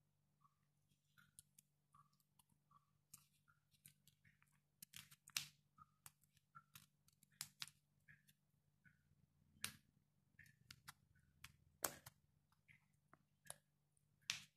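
Faint scattered crinkles and clicks of a paper cupcake liner being peeled off a soft sponge cupcake by hand, over a faint steady low hum.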